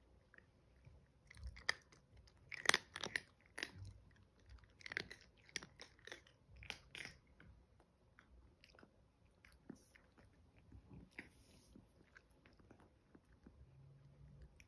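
Chihuahua puppies crunching dry kibble, a quick run of sharp crunches in the first half, then fewer and fainter ones.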